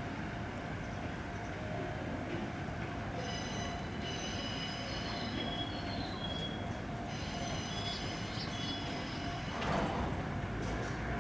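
Train moving on the rails with high-pitched wheel squeal that sets in about three seconds in, slides in pitch, and comes and goes, over a steady rumble; a single clank near the end.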